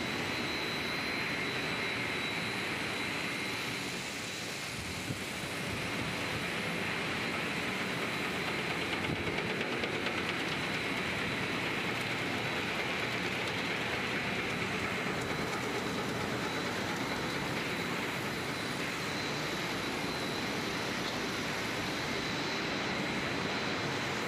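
Machinery of a running snack-chip production line: motors, conveyors and oven blowers making a steady, even factory noise with a thin high-pitched whine held throughout.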